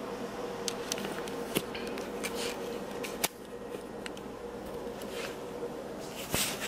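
Scattered light clicks and knocks of things being handled at a stovetop, over a steady low hum. The sharpest click comes about three seconds in and a noisier rattle near the end.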